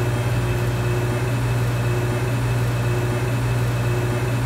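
Steady low electrical hum from running lab equipment: one deep tone that holds constant, with a fainter higher tone that comes and goes.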